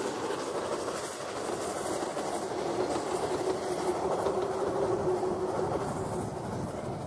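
A 009-scale model narrow-gauge train running along its track: a steady rattle of small wheels over the rails, with a faint motor whine that swells in the middle.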